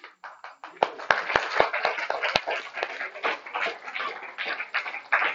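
Applause from a seated group of schoolchildren and parents: many hands clapping unevenly at once, growing fuller about a second in.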